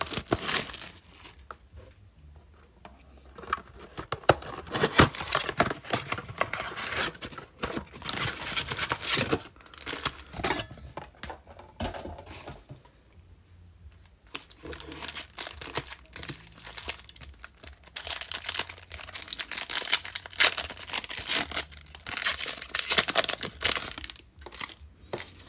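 Foil trading-card wrappers crinkling and tearing as a blaster box and its packs are ripped open by hand, in bursts separated by short quieter pauses.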